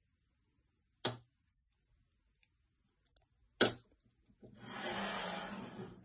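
Pleated blackout blind being opened: a sharp click about a second in and another louder click at about three and a half seconds as its magnetic catches unlock, then a steady rustling slide for the last second and a half as the pleated blind moves along its track.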